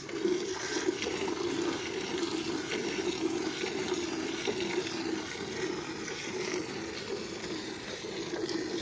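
Milk squirting into a steel bucket as a buffalo is hand-milked: a steady rushing hiss of streams striking the milk and bucket.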